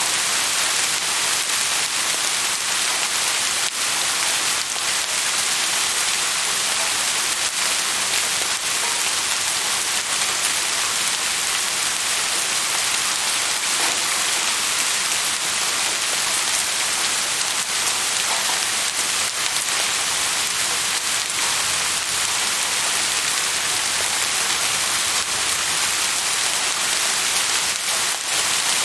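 Steady rain falling on a surface: an even hiss of many drops, with fine individual drop ticks scattered through it.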